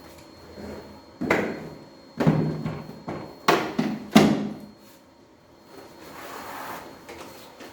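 Four hard knocks and clatters, each ringing briefly, as parts of a vacuum cleaner are handled and set down, followed by a soft rustle.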